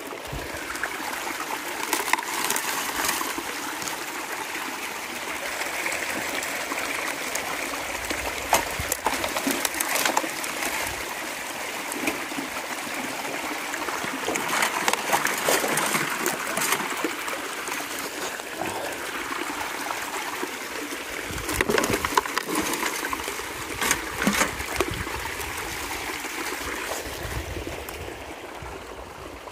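Water rushing and splashing steadily through a Keen Mini Max high banker's hopper and sluice. Several times, scoops of gravel are dumped onto the wet grizzly bars, giving short rattling splashes.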